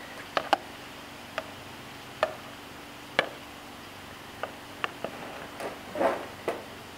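Metal kitchen tongs clicking, a handful of separate sharp clicks spread over several seconds, as they grip a raw chicken in a plastic bowl, then the wrapping around the chicken rustling near the end.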